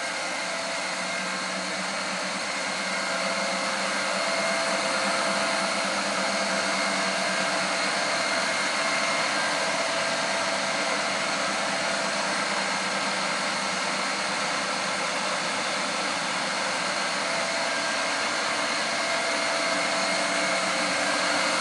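Hurco Hawk 5 CNC knee mill running its warm-up cycle, the spindle turning: a steady mechanical hum and hiss with a few constant tones, a little louder about three seconds in.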